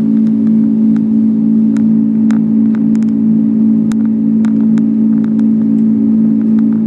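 Cabin noise of a Boeing 747-200 in the climb: the engines' steady drone with a strong low hum, and scattered faint clicks and rattles.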